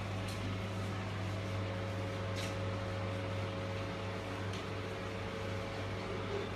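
Steady low electrical machine hum, with a few faint short ticks scattered through it.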